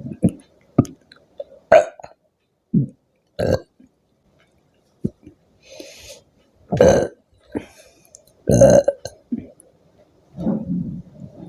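A woman burping again and again, about ten separate burps of different lengths. The two longest and loudest come about seven and eight and a half seconds in. The burps are brought up by gulped fizzy soda.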